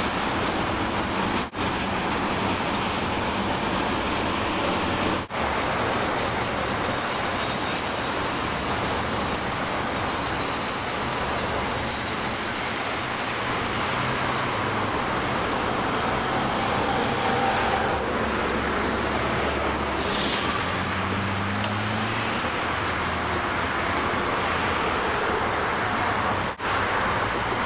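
A Chicago CTA Blue Line train rolls across a steel girder bridge over steady expressway traffic noise, with high, thin wheel squeal during roughly the first twelve seconds.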